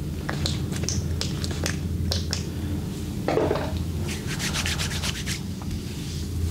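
Hands rubbing and stroking over skin during a body massage: a string of short brushing strokes with a quick run of them about four to five seconds in, and a brief louder thump just past three seconds. A steady low hum sits underneath.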